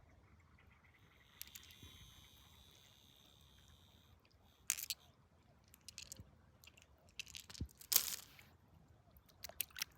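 Stones and gravel clicking and scraping as they are dug and handled, a handful of short sharp strokes with the loudest about eight seconds in.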